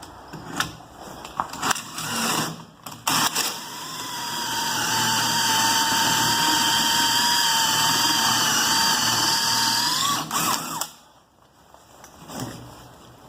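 Power drill with a 1-inch hole saw boring the bolt hole into the door's edge through the temp plate: a few knocks as it is set up, then the drill spins up to a steady whine and runs for about six seconds before stopping suddenly.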